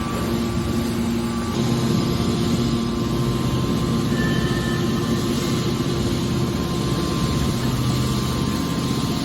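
Hydraulic car baler running: a steady mechanical hum from its hydraulic power unit, with a few held tones over a constant noisy drone.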